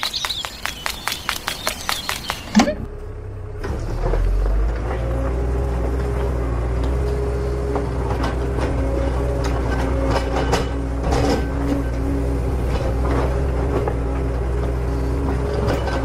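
Rapid, even clicking, about five a second, cut off by a sharp knock. About a second later a small motor starts running steadily, with a low hum and a faint wavering whine, likely the homemade mini tractor's drive motor and gears.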